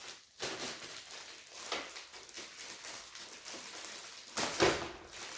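Packaging being handled: repeated rustling and crinkling of plastic wrap and packing material, with a louder scrape about four and a half seconds in.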